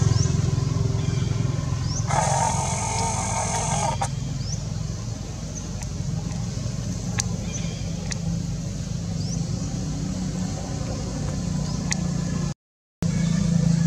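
A steady low motor rumble, with short high rising chirps now and then and a harsher, louder sound lasting about two seconds, starting about two seconds in; the sound cuts out for a moment near the end.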